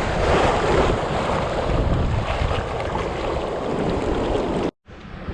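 Strong wind buffeting the microphone, with the wash of water over the tidal flats behind it; it cuts out for a moment near the end, then carries on.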